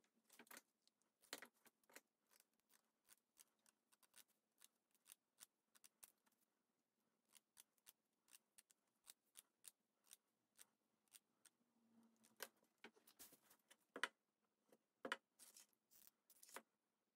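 Faint, scattered snips of scissors cutting rhinestone mesh ribbon, mixed with small clicks and rattles of the rhinestone trim being handled. A few louder knocks come near the end.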